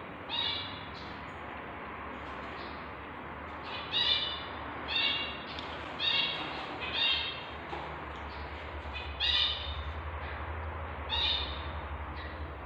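Newborn kittens mewing: about seven short, high-pitched cries, some about a second apart, over a low steady hum.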